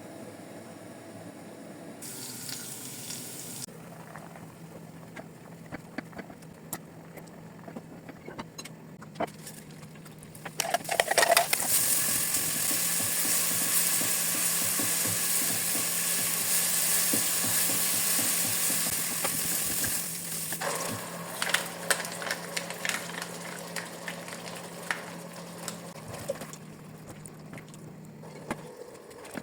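Ground beef frying in a hot pan, sizzling, with a utensil clicking and scraping as it is stirred. The sizzle swells suddenly and loudly about a third of the way in and dies back down about two-thirds of the way through.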